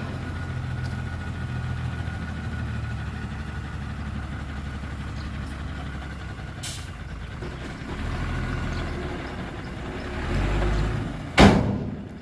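Heavy diesel engine of earthmoving machinery running steadily at low speed, swelling twice in the second half. About eleven seconds in there is a single loud bang.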